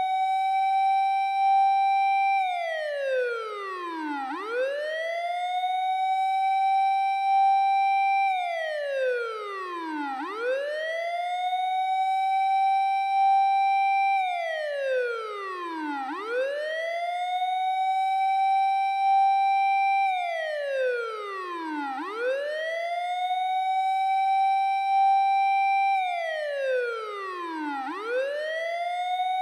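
Japanese fire engine siren sound from a siren app, wailing in a steady six-second cycle. Each cycle rises quickly to a high held tone, holds it for about two seconds, then slides back down, about five times over.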